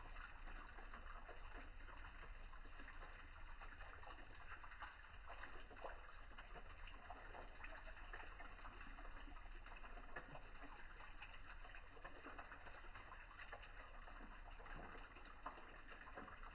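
Faint outdoor ambience: a steady low hiss with birds calling faintly.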